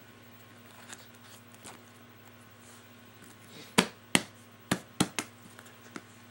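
Hands working a music player out of tight plastic packaging: faint rustling and scuffing, then about four seconds in a quick run of five sharp clicks and snaps as the plastic gives.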